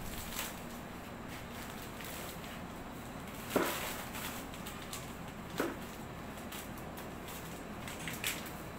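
A plastic bag of potting soil handled over a pot: three short crinkles or knocks about two seconds apart, over a steady low hum.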